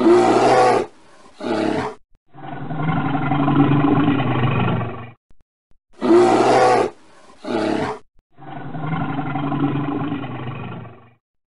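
Bear calls in a looped sound-effect sequence: a short loud call, a brief second call, then a long growl of about three seconds. The same sequence repeats identically about six seconds in.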